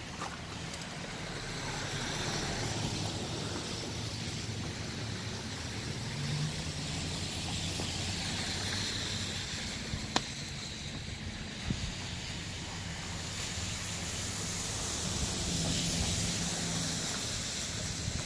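A car engine running steadily, with a low hum under a constant hiss. A single sharp click sounds about ten seconds in.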